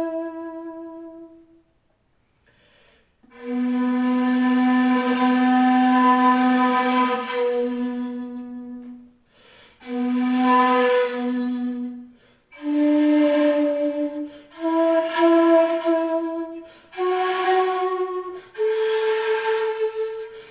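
Jinashi shakuhachi (2.1 length, in B, wide bore) played solo: a note dies away, then after a short pause a long, breathy low note is held, and a run of shorter notes follows, stepping upward in pitch one after another.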